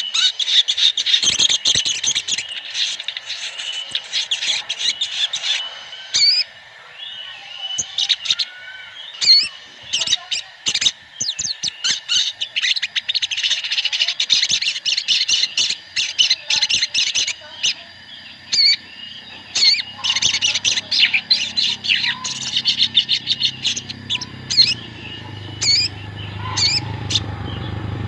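Many sogon sunbirds twittering and chirping together in rapid, overlapping high calls: an 'ombyokan' flock recording used as a lure to get a caged sogon to start singing. A low rumble comes in during the second half and grows toward the end.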